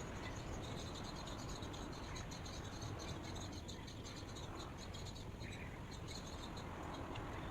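Rapid high-pitched animal chirping, dense and continuous, over a steady low rumble of outdoor ambience.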